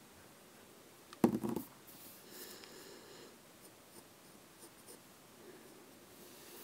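Graphite pencil scratching on drawing paper in short strokes, with a brief, loud clatter about a second in as something is knocked or set down on the desk.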